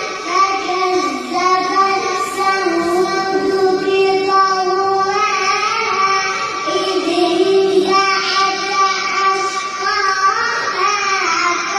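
A young child reciting the Quran in a melodic chanted style, one voice holding long drawn-out notes that bend in pitch, with brief breaks for breath.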